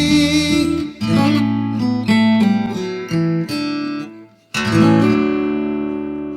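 Instrumental close of a song on acoustic guitar: a few picked notes, a short break about four seconds in, then a final strummed chord left ringing and slowly fading.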